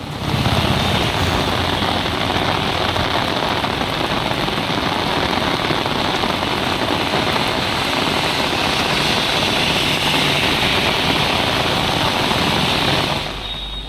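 Heavy rain pouring onto a road at night as a steady hiss, with vehicles driving through it; the sound drops away near the end.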